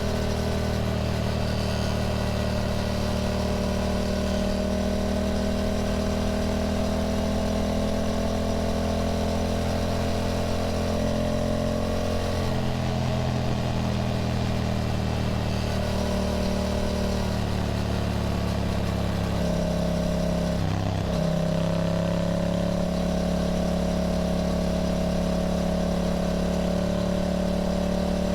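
Yamaha motorcycle engine running under way, with its pitch drifting slowly up and down. The tone breaks briefly about two-thirds of the way through, then climbs again.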